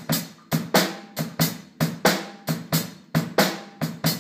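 Acoustic drum kit played in a steady beat of about four sharp hits a second.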